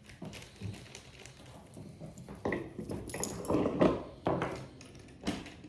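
Costume jewelry being handled and clinking on a table: scattered small clicks and clinks, busier and louder in the middle, with one more sharp click near the end.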